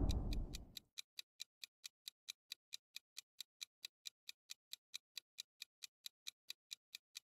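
Faint clock-ticking sound effect of a countdown timer, ticking evenly about four times a second. A whoosh fades out in the first second.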